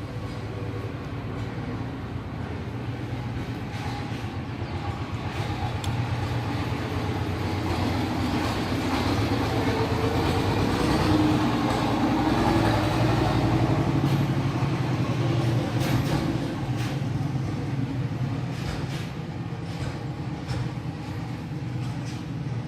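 A vehicle's steady low rumble, growing louder toward the middle and easing off again, with a few faint clicks.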